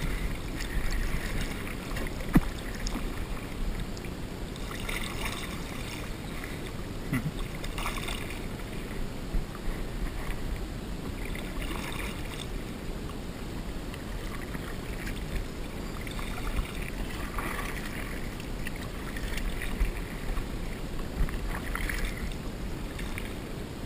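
Kayak paddle dipping into slow creek water, with splashes and drips every few seconds over a steady low noise. There is a sharp knock about two seconds in.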